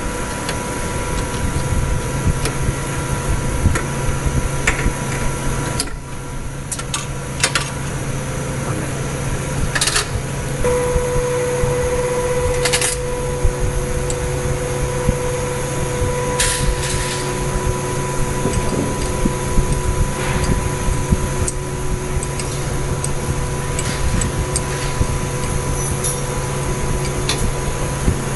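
Steady machinery hum with a few constant tones, a new higher tone joining about ten seconds in. Scattered light clicks of metal tools are heard as the fixture is fitted with a spanner.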